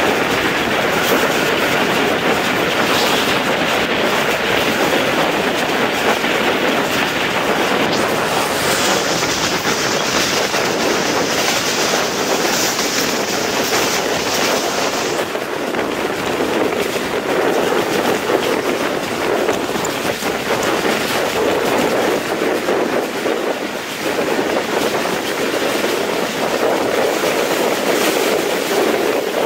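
Passenger train coach running along the track at speed: a steady rush of wheels on rails and wind at the open door. A brighter high hiss joins about nine seconds in and cuts off suddenly some six seconds later.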